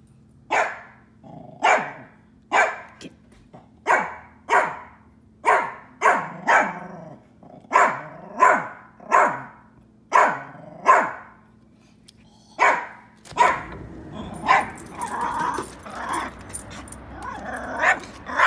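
A Pomeranian barking at a hawk, sharp single barks at about one a second. About two-thirds of the way in the barking turns faster and busier, with yips mixed in.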